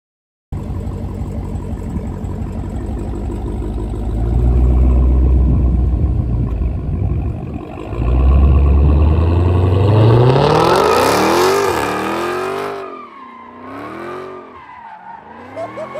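Supercharged Hemi V8 of a Dodge Charger SRT Hellcat Redeye running low at first, then revved hard twice. The second time it climbs steeply with tyres squealing, then it revs up and down as the car slides around.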